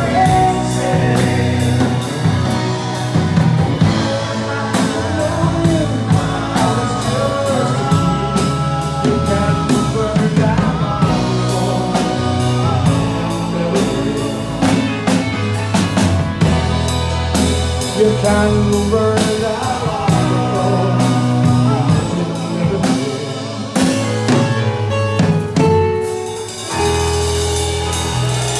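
Live pop-rock band playing: piano chords and a drum kit under a male lead singer.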